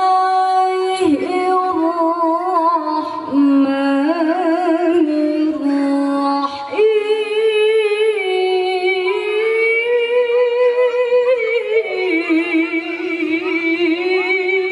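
A woman's solo Quran recitation in melodic tilawah style, sung into a microphone: long drawn-out melismatic phrases with wavering ornaments. Brief breaks come about a second in and again near three and seven seconds, after which the line climbs higher and is held long.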